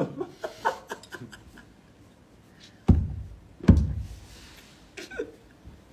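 Two dull thumps about a second apart, with a few light taps and clicks before and after them.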